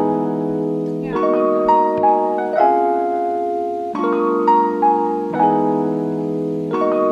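Background instrumental music: sustained chords that change about every one and a half seconds, with a light melody of short notes above them.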